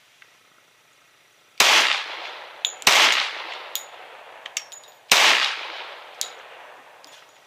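Three unsuppressed shots from a Glock 20 Gen 4 10mm pistol firing subsonic 180-grain full-metal-jacket rounds, each a sharp bang with a long echoing tail off the roof of the shooting hut. The shots come at uneven gaps, and there are light metallic clinks between them.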